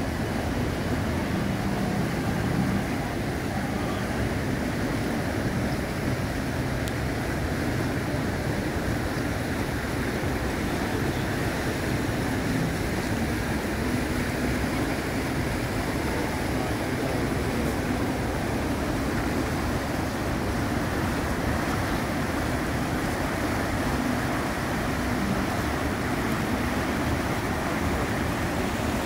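Creek rapids: white water rushing steadily over rocks.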